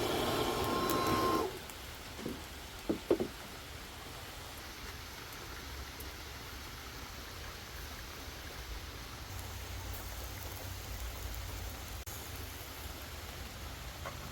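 Steady rain falling. A louder noisy burst with a steady tone in it is heard during the first second and a half, followed by a few short knocks about three seconds in.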